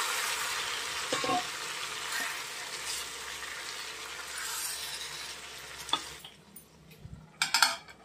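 Marinated chicken sizzling in hot oil in a kadai as it is stirred with a wooden spatula; the sizzle fades and dies down about six seconds in. Near the end comes a short metallic clatter as a steel plate is set on the pan as a lid.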